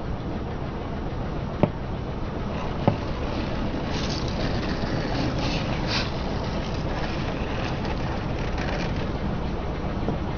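Small plastic jars being crushed under a slowly rolling car tyre: two sharp cracks about one and a half and three seconds in, then a stretch of crackling and crunching as the jars split and flatten. A steady low rumble from the car runs underneath.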